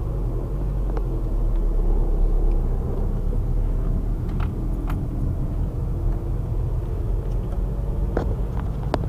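Volkswagen Vanagon engine running as the van pulls away in second gear and rolls along slowly, heard from inside the cab as a steady low drone. A few light clicks or rattles come through it.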